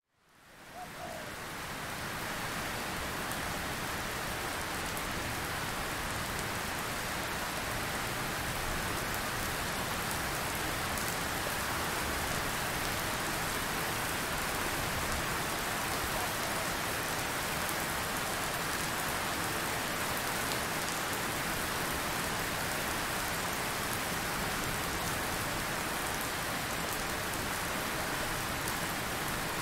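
Steady rain falling, an even hiss of drops that fades in over the first two seconds and then holds level.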